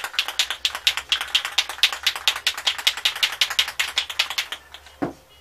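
A spray paint can being shaken, its mixing ball clacking fast and evenly, about eight clacks a second, then stopping; a short thud follows near the end.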